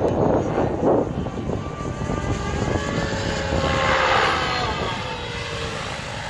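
Goblin Black Nitro radio-controlled helicopter flying a low pass, its nitro engine and rotor blades whining. The pitch falls as it sweeps past about four seconds in, then the sound fades as it slows to come in to land. A burst of rushing noise fills the first second.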